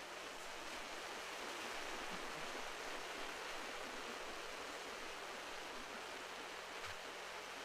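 Steady, even wash of sea surf with no distinct breaking waves, over a faint low hum.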